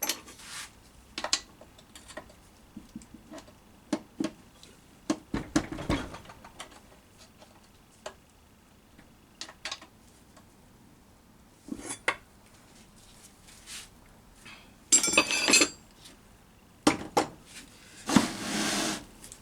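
Metal hand tools and loose gearbox parts clinking and knocking against each other and the transmission case during a manual gearbox teardown: scattered sharp clinks, with a denser rattling clatter and a longer rush of noise near the end.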